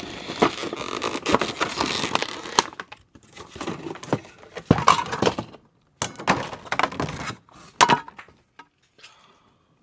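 Packaging being handled and unwrapped: dense crackling and crinkling with sharp clicks and taps, breaking into separate bursts after about three seconds and thinning out near the end.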